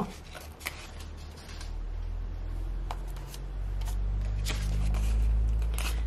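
Sticker handling at a desk: a few light clicks and scrapes from metal tweezers picking a small sticker off its sheet, over a low hum that swells in the second half.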